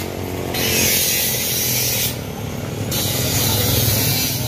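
A motorcycle's engine running as it rides past close by, its hum growing louder near the end, under a steady rushing hiss that drops out briefly twice.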